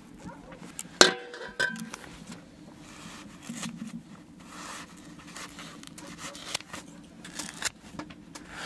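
Clicks and scrapes of objects being handled, with one sharp clank about a second in that rings briefly, followed by a smaller knock.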